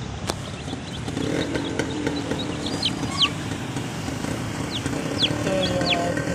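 Young chicks peeping: a scattering of short, high, falling peeps, thickest in the second half, over a steady background hum.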